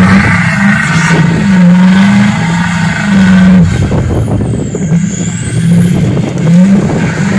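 Lifted Ford Super Duty pickup's engine running under load in the mud, its note rising and falling again and again as the throttle is worked and the tyres spin.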